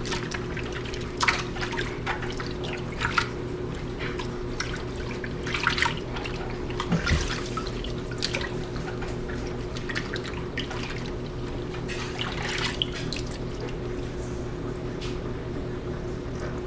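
Water splashing and dripping in a sink as a butyl rubber gas-mask second skin is washed by hand, in short irregular sloshes over a steady low hum.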